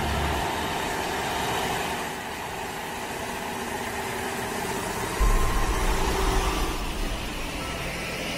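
Diesel engines of a slow heavy-haul truck convoy running as it passes, mixed with street traffic noise. About five seconds in, a deep low rumble comes in and stays.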